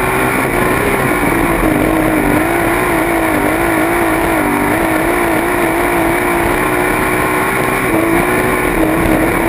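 Sprint car's V8 engine running hard at speed on a dirt oval, heard on board the car, its pitch wavering slightly up and down.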